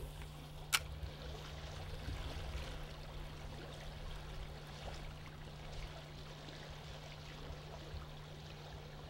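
Small trout stream running over a riffle and step drop, a faint steady rush of water, with one sharp click about a second in.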